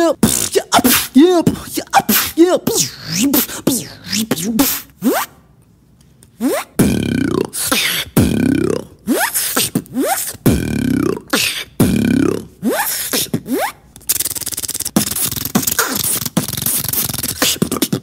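A beatboxer's mouth sound effects into a microphone. First comes a vocal imitation of DJ record scratching, quick back-and-forth pitch sweeps. After a short pause there is a run of about five falling swoops, one every second and a half or so, and near the end a dense hissing, clicking passage.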